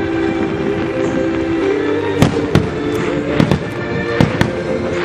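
Aerial fireworks shells bursting, with about half a dozen sharp bangs in the second half, some in quick pairs. Steady music plays underneath throughout.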